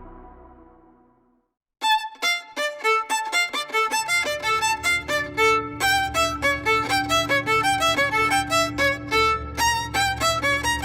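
Background music: a fading ambient tone dies away into a moment of silence. Then, about two seconds in, a fast violin tune of quick, short notes starts, and a steady low bass joins near four seconds.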